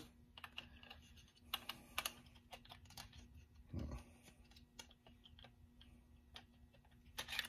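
Faint scattered clicks and taps of a Glock pistol's slide and frame being handled during reassembly, with a soft thump about four seconds in and a sharper click near the end.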